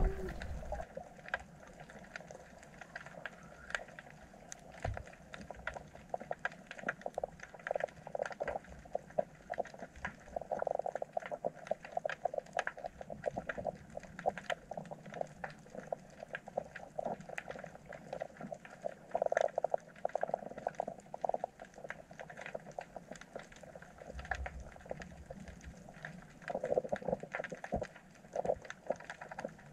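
Underwater sound picked up by a submerged camera among fish swarming a baited rig: a continuous crackle of small clicks and pops, with short rasping, pulsing bursts swelling up several times.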